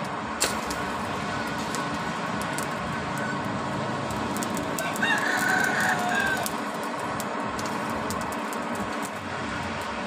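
Steady rushing of a charcoal forge's air blower feeding the fire, with a sharp click about half a second in. A rooster crows once about five seconds in.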